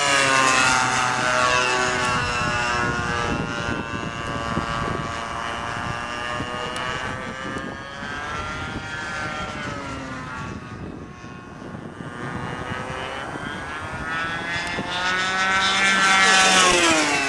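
Radio-controlled model airplane's OS Max 120 glow engine running at high throttle with a propeller buzz, as the plane makes low, fast passes. The pitch drops as it goes by just after the start, the engine grows fainter while the plane is far off in the middle, and it comes back loudest near the end, falling sharply in pitch as it passes again.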